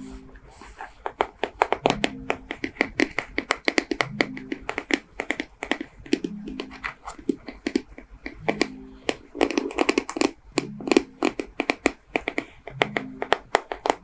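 Close-miked ASMR hand sounds: rapid, crisp tapping and crackling as hands work through hair and handle objects at the head. Under it runs soft background music with a low note repeating about every two seconds.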